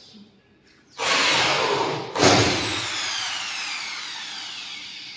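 Corded power drill driving screws through gypsum board into the ceiling frame: a run of about a second, a brief stop, then a second run whose motor whine falls slowly as the motor winds down.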